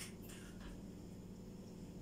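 Quiet kitchen with a low steady hum and a few faint clinks and rustles from kitchen utensils being handled, mostly in the first half second or so.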